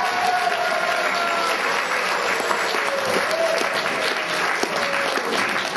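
Applause: the audience and the children onstage clapping.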